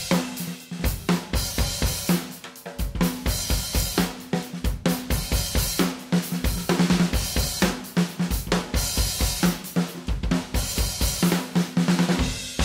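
Drum kit played in a busy, fast pattern of rapid hits, with bass drum, snare and cymbals.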